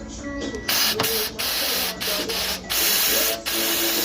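Compressed-air blow gun blasting in a string of loud hissing bursts with short breaks, starting under a second in, blowing dirt off air-conditioning parts.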